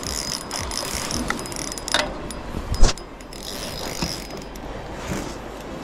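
Fishing reel being cranked: a ratcheting mechanical whir with scattered clicks, and two sharp knocks about two and three seconds in.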